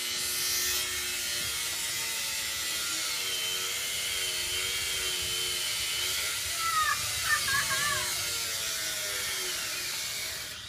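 Angle grinder running against metal: a steady grinding hiss with a motor whine that wavers in pitch as the disc is loaded.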